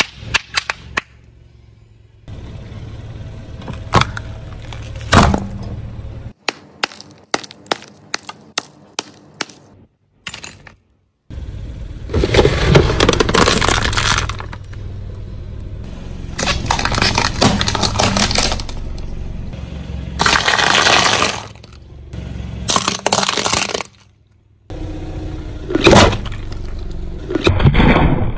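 Objects cracking and crunching as a car tyre rolls over and crushes them: a quick run of sharp snaps, then several loud bouts of dense crunching, each a second or two long, with abrupt breaks between them, over the low rumble of the car.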